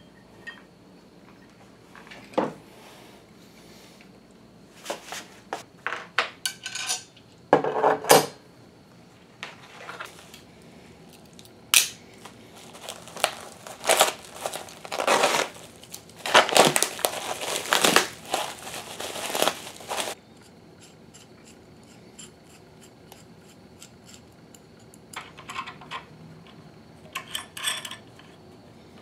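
Bubble-wrap packaging crinkling and tearing as it is cut open, in repeated bursts, with metal hardware clinking and clattering at other times.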